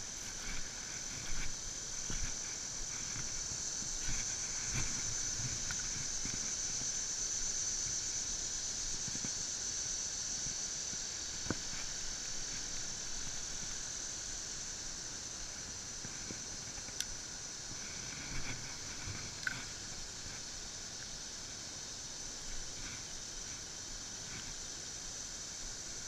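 A steady, high-pitched chorus of insects, with a few short clicks from a spinning reel being handled.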